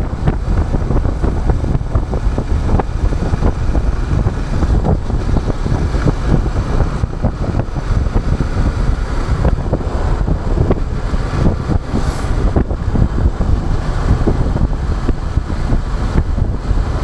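Yamaha MT-07's parallel-twin engine running on the move, heavily covered by wind buffeting the microphone.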